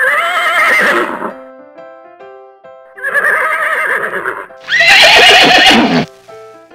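Horse whinnying three times, each call wavering in pitch, the last one the loudest. A light piano tune plays underneath.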